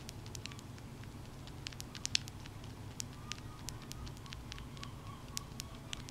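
Baby Syrian hamster nibbling, tiny sharp clicks coming irregularly several times a second over a low steady hum.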